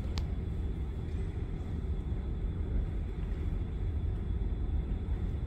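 A steady low rumble of outdoor background noise, with one brief faint click just after the start.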